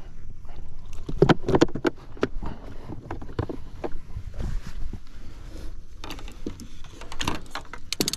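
Irregular knocks, thumps and clatter on a boat's deck, with a loud cluster about a second in and another near the end.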